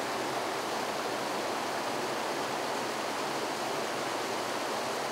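River water flowing, a steady even rush with no change in level.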